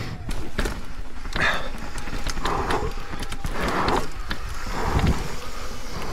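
Propain Spindrift enduro mountain bike rolling along a dirt forest trail: tyre noise and sharp rattling clicks from the bike, over a steady low rumble of wind on the camera mic. Hazy swells of noise come about once a second.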